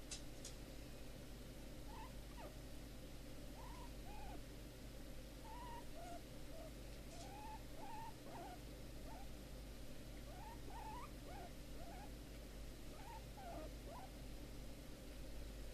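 Guinea pig sow squeaking softly while being rubbed: a string of short, quiet notes that rise and fall in pitch, starting about two seconds in and coming several times a second at times. These are happy squeaks in response to the rubbing.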